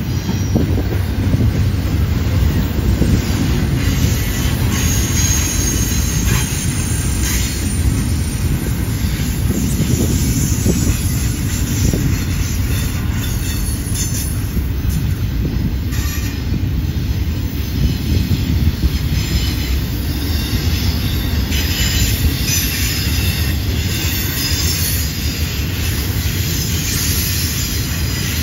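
Double-stack intermodal well cars of a freight train rolling past on a curve: a steady low rumble of steel wheels on rail, with high wheel squeal now and then and a few clanks.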